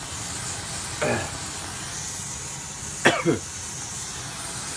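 Burning homemade mace smoke bomb hissing steadily, with a person coughing from the acrid smoke once about a second in and again in a harder fit of two or three coughs around three seconds in.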